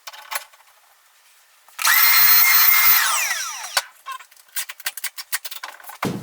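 Power drill run briefly at full speed, then released so the motor spins down with a falling whine, followed by a quick string of sharp clicks.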